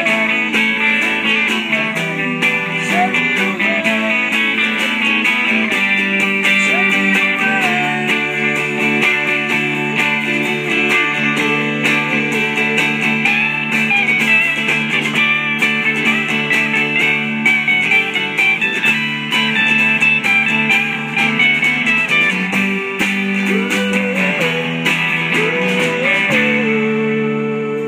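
Live rock band playing an instrumental passage on two electric guitars and a drum kit, with a lead guitar line over the chords and cymbals. It settles into a held chord near the end.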